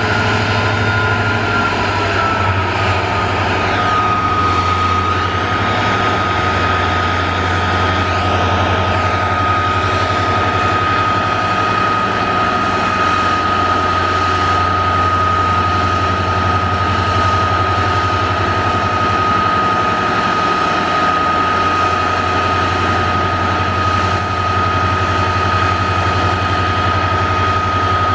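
Twin EMD WDG4 (GT46MAC) diesel-electric locomotives, each with a turbocharged two-stroke V16 engine, running hard at a high throttle notch to start a loaded freight train up a gradient. A steady deep engine drone sits under a strong steady high whine, which dips slightly in pitch in the first two seconds and then holds.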